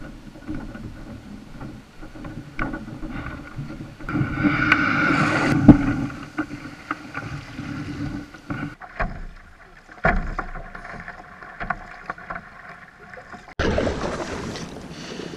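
Knocks, clunks and scraping of a Stealth Profisha 475 fishing kayak and its gear being handled at launch, with a louder stretch and one sharp knock about a third of the way in. Near the end a steady wash of water and wind around the kayak.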